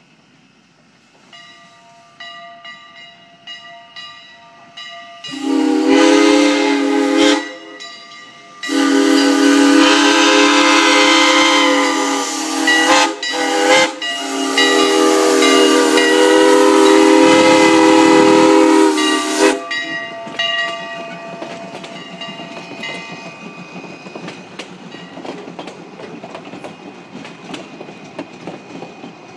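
Two-foot narrow gauge steam locomotive's whistle: a few fainter notes, then loud chord-like blasts in a long, long, short, long pattern, the grade-crossing signal, the last one held for several seconds. Then the engine and its coaches roll past with hissing steam and rail clatter.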